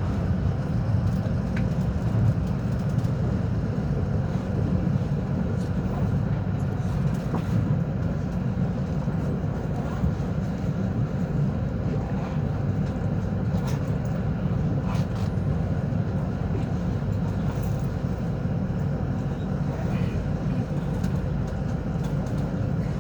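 Steady low rumble of a rapid train running between stations, heard from inside the carriage.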